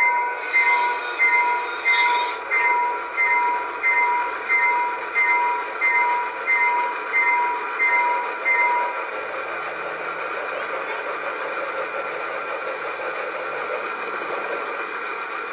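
Model Dash 9 diesel locomotive's onboard sound system ringing its bell, about one and a half strokes a second, with a brief hiss near the start. The bell stops about nine seconds in, leaving the steady diesel engine sound with a low rumble.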